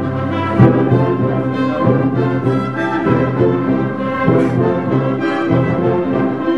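Wind ensemble playing held brass chords, with horns and trombones prominent and a sharp accented hit about half a second in.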